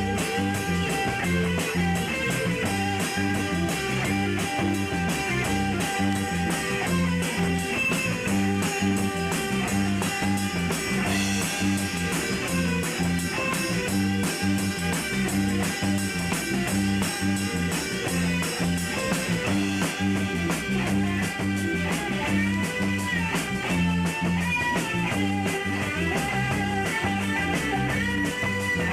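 Rock band playing live, electric guitar over bass and drums with a steady beat, in a blues-rock style.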